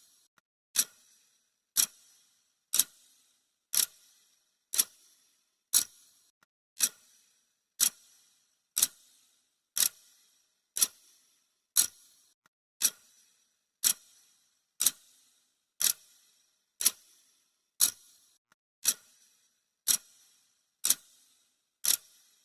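Clock ticking sound effect: one sharp, bright tick every second, steady and even.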